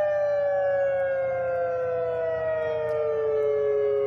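Outdoor civil defense siren sounding a tsunami warning: a steady wail whose pitch sinks slowly throughout.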